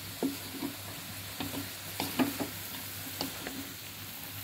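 Wooden-handled spatula stirring chopped long beans and tempeh in an aluminium wok, with irregular scrapes and knocks against the pan over a steady sizzle of frying.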